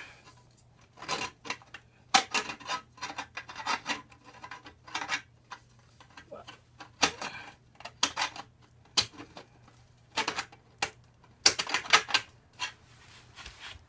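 Metal exhaust link pipe clinking and scraping against the header joint as it is worked into place by hand: irregular sharp clicks and scrapes, the loudest a second or two before the end. The pipe end is slightly warped out of round, so it doesn't slip in easily.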